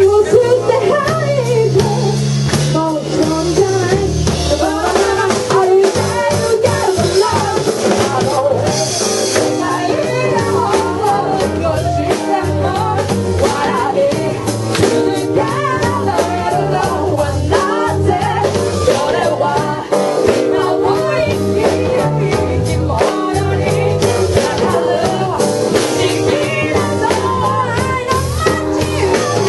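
Live band music: a vocal melody sung over bass and drum kit with a steady beat.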